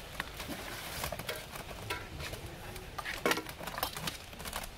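Scattered light clicks and clinks, irregular and not very loud, over a faint steady hiss.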